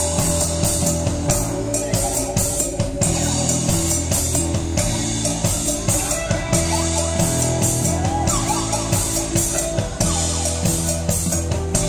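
Rock band playing live through a PA, in an instrumental stretch of the song: steady drum kit beat, bass guitar and keyboards.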